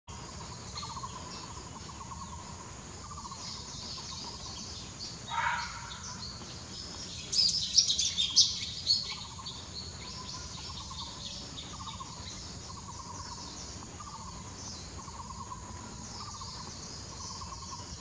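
Black bulbuls calling: a short call about five seconds in, then a loud burst of sharp chattering calls about halfway through. Behind them run a steady high drone and a low trilling note repeated every second or two.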